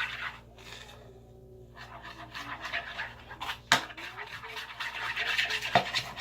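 A wooden stirring stick scraping and rubbing around a bowl as glitter is mixed into clear glue, in a quickening rhythmic rasp, with two sharp knocks of the stick against the bowl.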